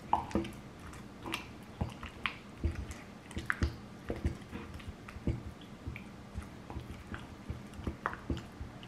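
Wooden pestle mashing avocado in a wooden mortar: irregular wet, squishy knocks, about two a second, the loudest just at the start.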